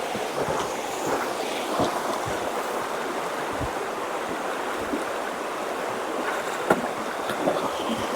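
Steady rush of a mountain creek flowing alongside the trail, with a few soft thumps.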